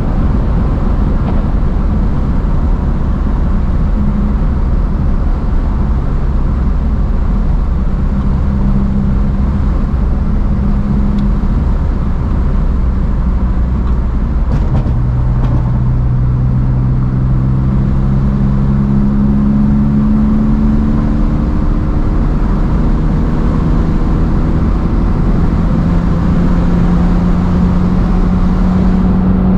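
BMW inline-six engine running under way on the road, its pitch holding, then stepping up about halfway through and climbing slowly twice, over a steady rumble of road and wind noise.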